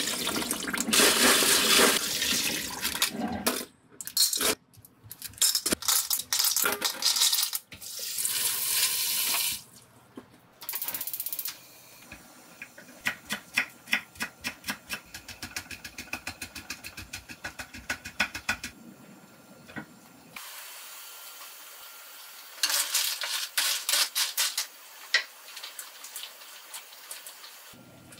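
Tap water running over clams in a stainless-steel colander, then the clam shells clinking and rattling as they are rubbed clean. After that a kitchen knife chops green onions on a wooden cutting board, about three strokes a second. Near the end the clams boil in a wide pan with a steady hiss.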